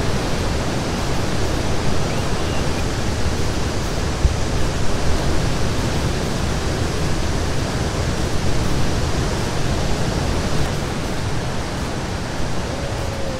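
Waterfalls and river rapids: a loud, steady rush of white water.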